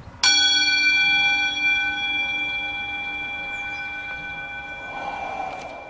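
A metal bell struck once about a quarter second in, its ringing tone slowly fading over several seconds.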